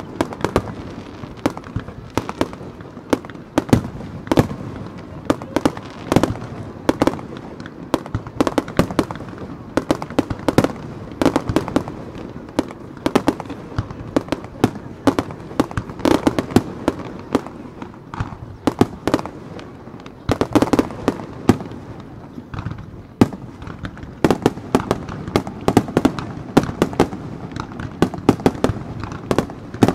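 Aerial fireworks shells bursting in a continuous barrage: sharp bangs several times a second, one after another.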